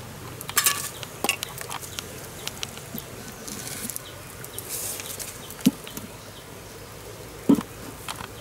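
Camp handling sounds: a spoon clinks against a small cup early on, then a wooden pole knocks twice as it is set across forked sticks, with scattered light ticks over a steady outdoor hiss.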